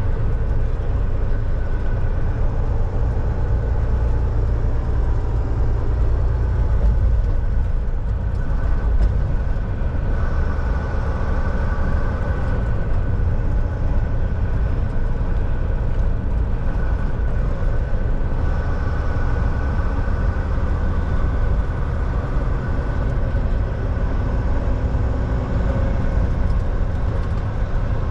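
Volvo semi-truck under way: a steady deep rumble of engine and road noise, with a faint steady whine above it.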